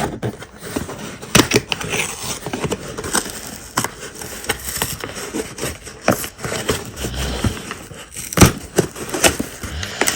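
Glued cardboard box being pried and worked open by hand: irregular scraping, crackling and rustling of the cardboard, with scattered sharp knocks and clicks from the handling.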